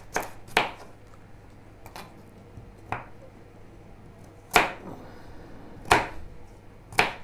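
Kitchen knife chopping carrot on a wooden cutting board: about seven sharp knocks of the blade against the board at uneven intervals.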